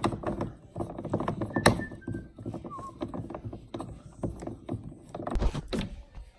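Blue plastic hand knob being threaded by hand onto the bolt through the Snow Joe snow thrower's metal handle frame: a string of small clicks and knocks with a couple of brief squeaks. There is a louder bump near the end.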